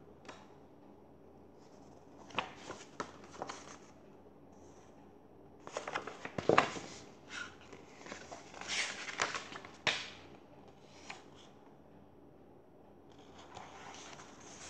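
Pages of a paperback book being turned and handled, paper rustling and crinkling in several short bursts with quiet gaps between.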